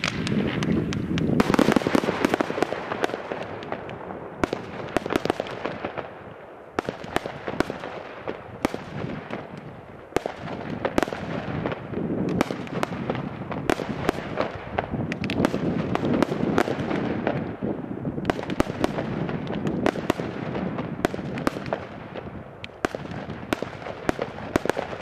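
Consumer firework batteries (cakes) firing shot after shot: launches and bursting stars with sharp cracks several times a second over a constant crackle, loudest in the first few seconds.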